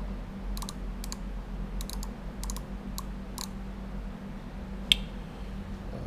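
Digital micrometer's ratchet thimble clicking in small groups as it is closed onto a threaded lathe part, with one sharper single click near the end. A steady low hum runs underneath.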